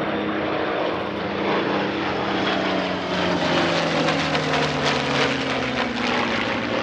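Piston-engined propeller warbird flying past, its engine note dropping in pitch from about three seconds in as it goes by.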